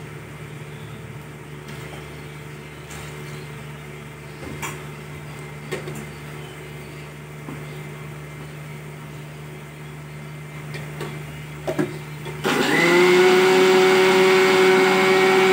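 A few light clinks of the steel grinder jar being handled and its lid fitted. Then, about twelve seconds in, an electric mixer grinder switches on, its motor whining up in pitch and settling into a steady, loud run as it grinds coconut, black pepper and cumin into a paste.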